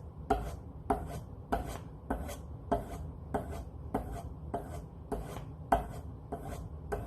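Leather skiving knife being stropped on a vegetable-tan leather strop charged with stropping compound. A quick swipe of the blade over the leather comes about every 0.6 seconds, evenly paced.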